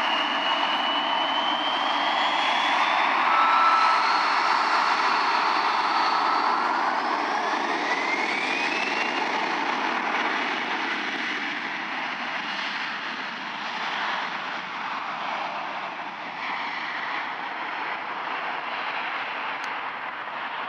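Embraer E-170 twin turbofan jet spooling up for takeoff: a high engine whine climbs in pitch a few seconds in, and a second, lower whine climbs steeply about eight seconds in, over the steady roar of the jet exhaust. The sound grows fainter in the second half as the jet rolls away down the runway.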